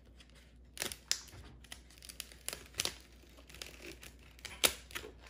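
Thin vacuum-formed plastic mold crinkling and crackling as it is flexed by hand to free the sugar casting. The crackles are irregular, with a few sharper cracks about a second in, around three seconds and near the end.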